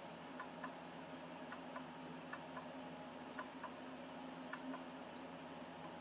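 Faint steady hum with light double clicks about once a second.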